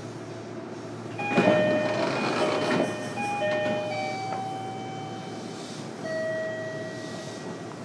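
JR Kyushu 305 series EMU running, heard from inside its motor car: the VVVF inverter sings in clean steady tones that jump from one pitch to another every second or so over the rolling noise. About a second and a half in, a louder stretch of wheel-on-rail rattling and clicking lasts for about a second and a half.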